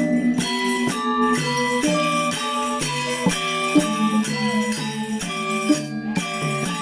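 Balinese gamelan angklung music: an ensemble of struck metal-keyed instruments playing a flowing melody of ringing notes, changing about every half second, over a repeating lower part, with a jingling shimmer on top.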